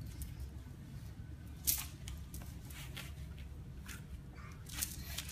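Brief rustles and scuffs as small children handle toys and shift about on a foam play mat, the loudest about a second and a half in and a few more near the end, over a low steady hum.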